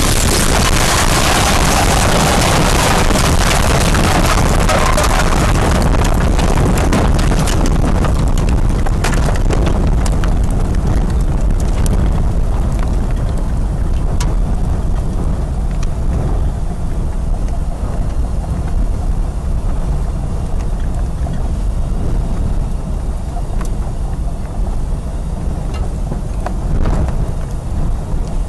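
Strong storm wind buffeting the microphone, a loud continuous rush with a heavy low rumble and scattered sharp clicks. The high hiss eases after about eight seconds while the low buffeting goes on.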